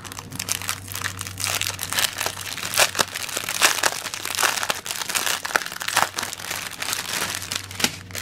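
Clear plastic packaging crinkling and crackling as it is handled, in a dense, irregular run of crackles.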